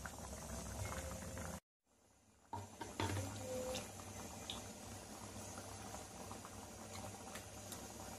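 Moong dal sambar simmering in a pan, a steady bubbling with small pops. About a second and a half in, the sound cuts out to silence for about a second, then the bubbling resumes.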